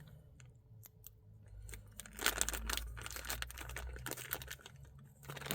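Crinkling and rustling of packaging being handled, a quick run of crackles from about two seconds in.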